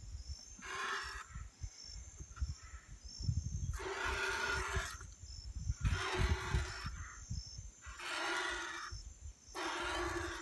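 Milk squirting into a metal pail during hand-milking of a cow, a hissing spurt with each squeeze of the teat, repeating about every two seconds.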